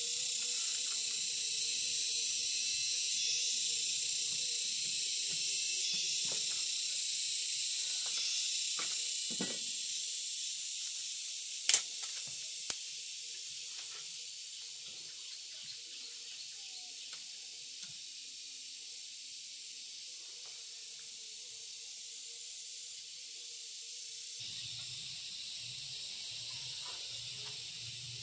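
A steady high-pitched hiss that fades gradually after about ten seconds, with a couple of sharp clicks about twelve seconds in.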